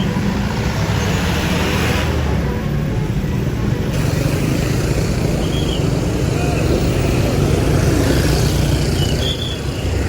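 Large bus engine running with a steady low drone.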